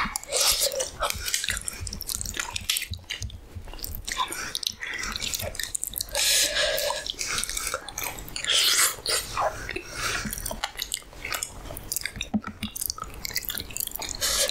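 Close-miked mouth sounds of a person chewing a mouthful of halwa puri: irregular chews and bites.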